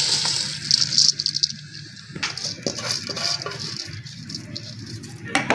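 Dry rice grains pouring from a steel bowl into a pot of boiling water, a hiss for about the first second, then scattered ticks and clinks as the last grains are scraped out of the bowl by hand.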